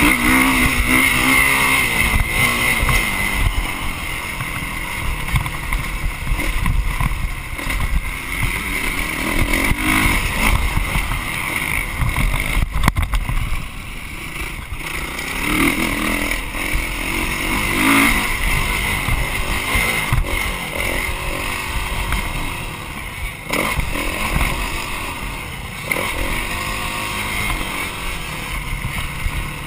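Motocross dirt bike engine heard from the handlebars while riding a track lap, the revs rising and falling every few seconds with the throttle, with a brief easing off about halfway through.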